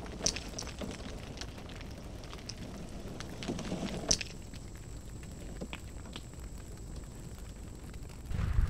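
Smouldering wreckage crackling softly, with scattered small pops and one sharper click about four seconds in. A faint high steady whine comes in at that point and stays.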